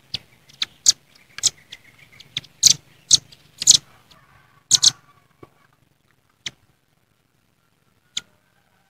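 Velvet-fronted nuthatch giving sharp, high-pitched chip calls: a rapid, irregular series for about five seconds, then a few spaced single chips. These are the noisy calls it makes at a rival.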